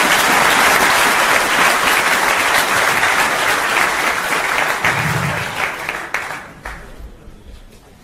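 Audience applauding, then thinning out and dying away with a few last claps about six to seven seconds in.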